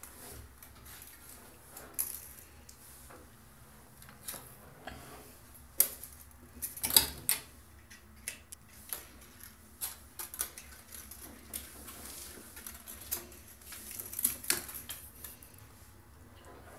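A small toy clattering and skittering across a tile floor as a kitten bats at it: irregular clicks and knocks, with the loudest cluster about seven seconds in.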